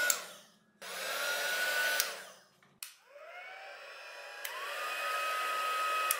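Small electric craft heat guns blowing, their fan motors whirring. A one-speed heat gun runs for about a second, then switches off with a click. A two-speed heat gun then starts on low and is switched up to its higher setting about a second and a half later, its whine stepping up in pitch.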